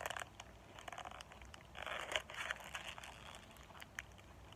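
Close-up eating sounds: a mouthful of burrito being chewed, with crinkling of its paper wrapper in two short bursts, one at the start and a louder one about two seconds in.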